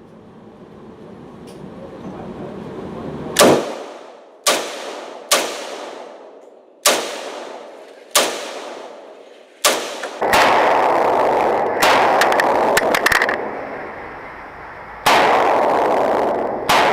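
Firearm shots: six sharp bangs at uneven spacing about a second apart, each ringing off. They are followed by a loud continuous rushing noise with rapid crackling that starts about ten seconds in.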